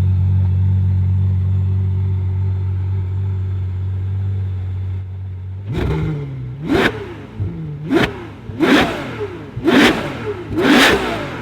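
Ferrari F12's 6.3-litre V12 idling steadily through a titanium Valvetronic Designs valved exhaust with the valves closed. About halfway through it is blipped up five or six times in quick succession, each rev rising sharply and dropping back.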